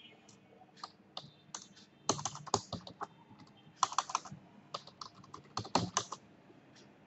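Typing on a computer keyboard: short key clicks in irregular bunches, with pauses between them.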